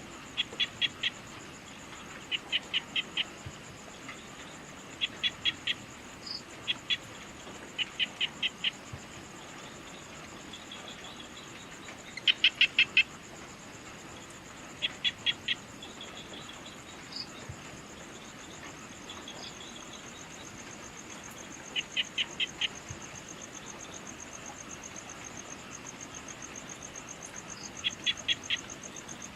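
Evening nature ambience: a steady, high insect trill like crickets, with a short burst of three to five quick, sharp call notes every two to three seconds, pausing for several seconds in the middle.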